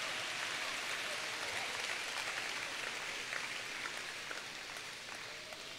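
Congregation applauding, a dense patter of many hands clapping that slowly dies away toward the end.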